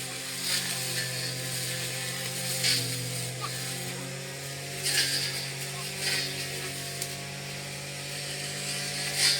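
Small two-stroke brush cutter engine running steadily while cutting grass, with a few brief louder swishes as the cutter hits the growth.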